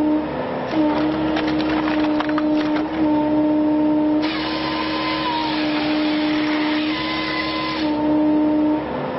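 Firewood processor running, a steady machine drone whose pitch sags briefly under load a few times, with a quick run of sharp cracks from a birch log being split about one to three seconds in.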